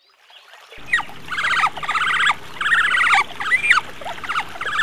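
Otter calling: rapid runs of high, squeaky chirps in about five bursts, starting about a second in.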